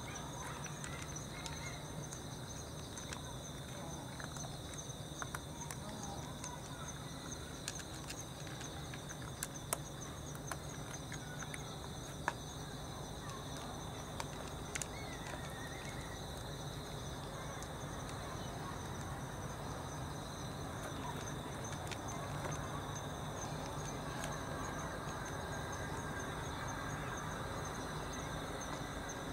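Crickets chirring in a steady chorus, a fast even pulse held throughout, with a scatter of small sharp clicks from cats eating out of plastic trays.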